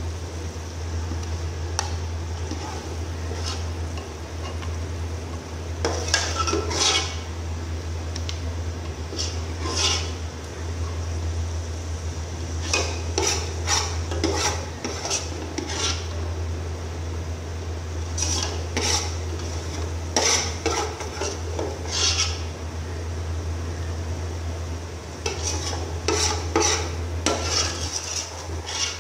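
Metal spoon scraping and clinking against the inside of an aluminium cooking pot as thick chicken and potato masala is scooped out, in repeated bouts of scrapes, over a steady low hum.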